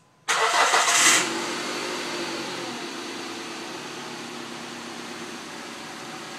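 Dodge Neon's newly swapped-in engine starting up: it catches suddenly, flares loudly for about a second, then settles into a steady idle.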